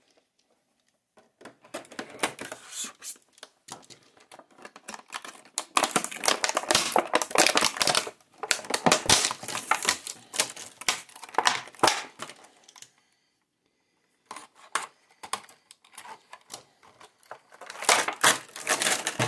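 Stiff clear plastic clamshell packaging crackling and clicking in rapid, irregular runs as it is handled and opened around a machete. There is a short pause about thirteen seconds in.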